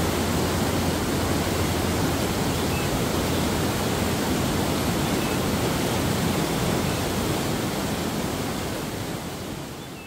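Rushing water: a steady, even roar of falling water that fades away over the last second or so.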